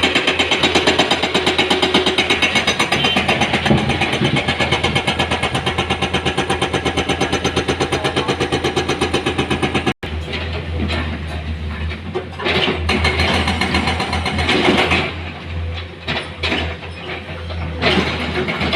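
Heavy diesel engine running, with a rapid even pulse of about six beats a second. It breaks off suddenly about halfway and resumes with irregular louder surges and a few sharp noisy moments, as the machine works under load.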